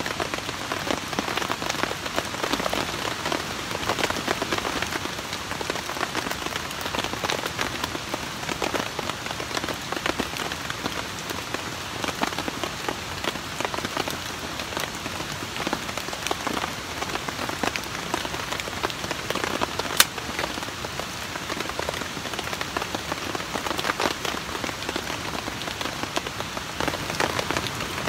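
Rain pattering steadily, mixed with the crackle of wood kindling burning in a Solo Stove Campfire wood stove. One sharp snap comes about two-thirds of the way through.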